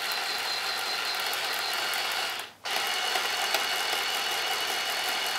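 LEGO Technic rudder drive from the RC unit's motor output, its plastic gears running with a steady mechanical whirr as the boat's rudders swing. It stops for a moment about halfway through, then starts again.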